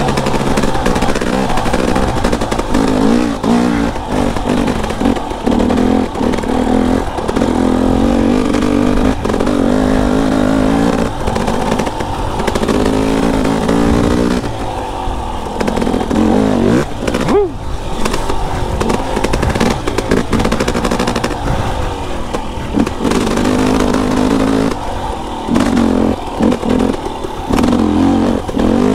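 KTM enduro dirt bike engine running while being ridden, its revs rising and falling with the throttle.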